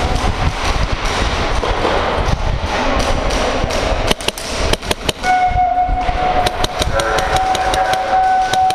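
Airsoft guns firing: a run of sharp clicking shots in quick succession, thickest in the second half, over a steady low rumble. A steady pitched tone sounds alongside from about five seconds in.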